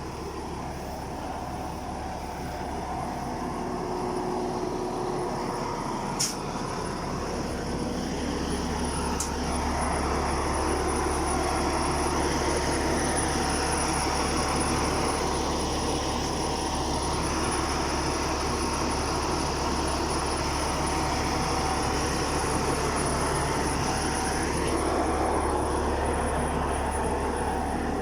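Rice combine harvester's engine running steadily, getting louder about nine seconds in and staying loud. There is a single sharp click about six seconds in.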